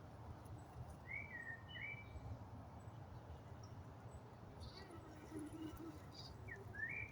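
Birds calling: a few short whistled notes that slide up and down in pitch, about a second in and again near the end, over a faint low rumble.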